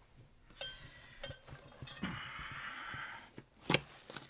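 Handling noise as a large loudspeaker driver is gripped and lifted out of a cardboard box: a few light knocks, a second or so of cardboard scraping and rustling, then one sharp knock near the end.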